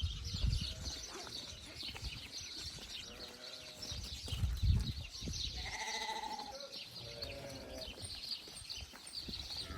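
Livestock bleating: a few wavering bleats, the clearest about six seconds in, over a low rumble.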